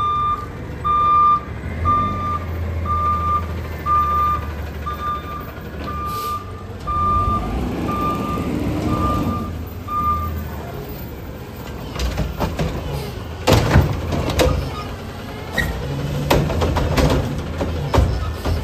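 Heil automated side-loader garbage truck running, its reverse alarm beeping about once a second for the first ten seconds. From about twelve seconds on come repeated clanks and bangs as the hydraulic arm grabs and lifts a green organics cart.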